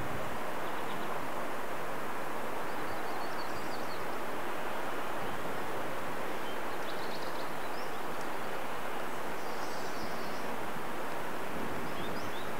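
Steady, even outdoor background noise with a few faint, high bird chirps scattered through it. No tapping or drumming from the woodpecker stands out.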